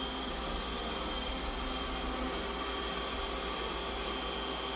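Robot vacuum running, a steady whirring hum with a thin high whine over it.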